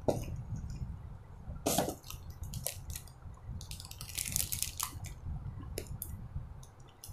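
Boxed, plastic-wrapped garments being handled and set down on a plastic table cover: rustling and crinkling of the wrapping, with a knock about two seconds in and a burst of crinkling around four seconds in, over a low rumble.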